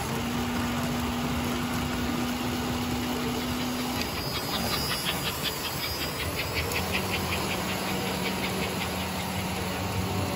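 American Flyer Seaboard coal loader's electric mechanism humming steadily as the clamshell bucket is lowered, then a quick rattle of the bucket scooping the model coal from about four to nine seconds. From about seven seconds in the hum continues at a lower pitch as the loaded bucket is hoisted.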